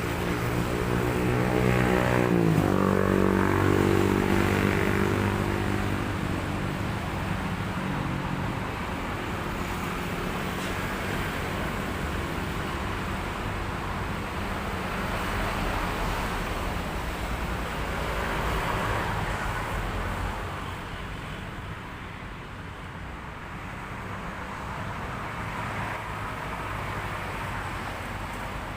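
A motor vehicle going past, its engine note dropping in pitch about two and a half seconds in and fading over the next few seconds, followed by steady traffic noise.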